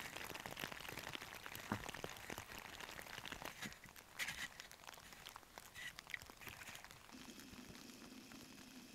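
Faint crunching and scraping of a small snow shovel digging packed snow away from a tent, a quick irregular run of soft scrapes and crunches. About seven seconds in this gives way to a faint steady low hum.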